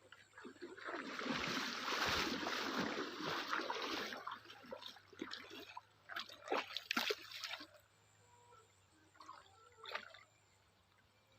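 Water splashing and trickling: a dense, steady splash for the first few seconds, then a run of separate splashes that grow fainter.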